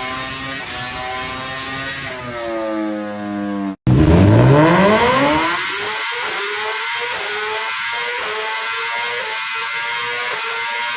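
Sport-bike engines at high revs: one engine's revs climb, then after an abrupt cut about four seconds in another accelerates hard, its pitch sweeping steeply upward before holding a high, steady note near full throttle.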